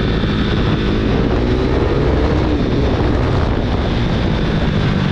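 KTM RC 390's single-cylinder engine running through an aftermarket Akrapovic full-system exhaust while the motorcycle is ridden, loud, with wind buffeting the microphone.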